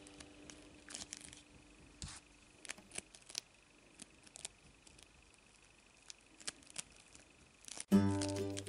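Faint, scattered clicks and crackles of fingers handling a small plastic doll figure as it is pulled out of a ball of play foam beads. Music comes in near the end.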